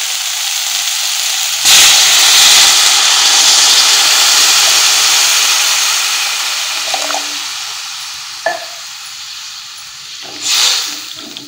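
Spiced vegetables sizzling in oil in a kadai. About two seconds in, a glass of water is poured in and sets off a sudden loud hissing sizzle, which slowly fades over the next several seconds.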